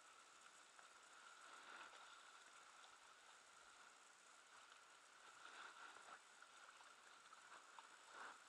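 Near silence: a faint steady hiss with a few light ticks.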